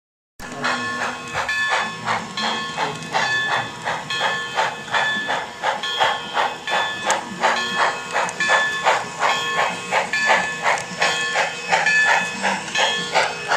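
Steam locomotive chuffing in a steady rhythm, a few hissing beats a second, from the sound of the HO-scale Reading Crusader model's streamlined steam engine. It starts suddenly just after the title card.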